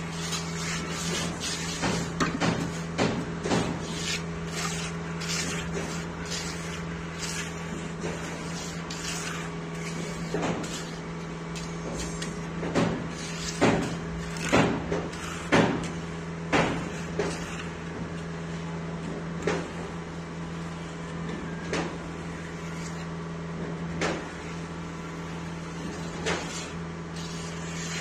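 A mason's steel trowel scrapes and pats wet concrete as it is spread and smoothed between wooden plank forms. The strokes are irregular and sharp, loudest in a cluster around the middle, over a steady low hum.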